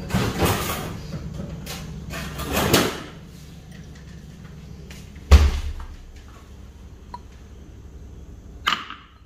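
Handling and rustling noises, then a heavy thump about five seconds in. Just before the end a single ice cube drops into a glass tumbler with a short clink.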